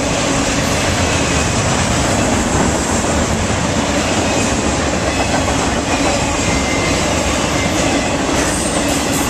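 Railroad cars of a passing train rolling by close at speed: a steady noise of steel wheels on the rails.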